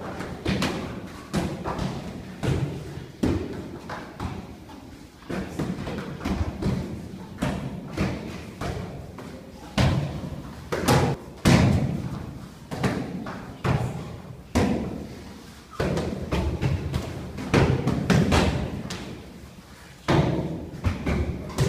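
Kicks and strikes landing on handheld kick pads: an irregular run of thuds and slaps, several at a time, each with a short echo off the hall.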